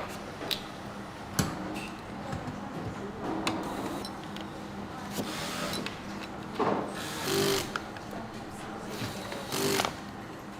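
Workshop tool sounds: a steady low machine hum with scattered sharp clicks and several short bursts of mechanical noise, the loudest a little past halfway and again near the end.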